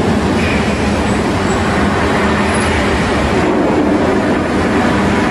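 Steady, loud hiss and roar of a CNC thermal cutting machine's torch cutting steel plate.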